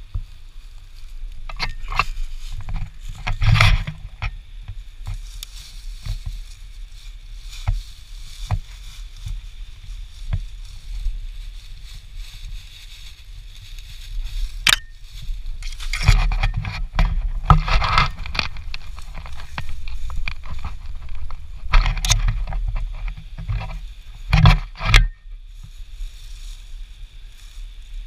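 Footsteps crunching and scuffing through dry leaf litter and twigs, coming in irregular bursts with a few sharp snaps, over a steady low rumble.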